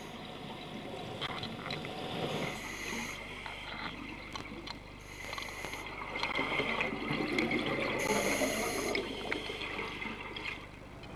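A scuba diver breathing underwater: a hiss through the regulator about every three seconds, and gurgling, crackling exhaled bubbles in between.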